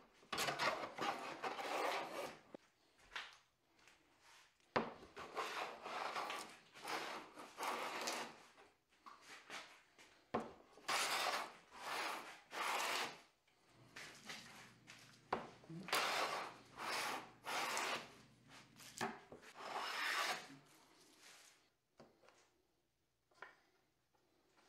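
Hand plane shaving along the edge of a wooden board in a series of long strokes, each a second or two. The strokes stop a few seconds before the end, and a couple of faint knocks follow.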